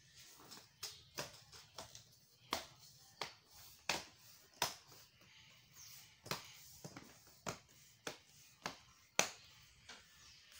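A string of sharp clicks, about one every two-thirds of a second, as the screen panel of a 50-inch Samsung LED TV is pressed by hand into its frame and snaps into place along the edge.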